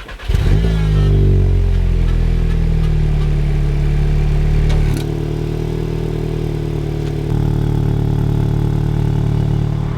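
Volkswagen Mk7 Golf R's 2.0-litre turbocharged four-cylinder cold-starting: it fires and flares in revs, falls back over a second or two, and settles into a steady fast cold idle that drops a step in pitch and loudness about halfway through.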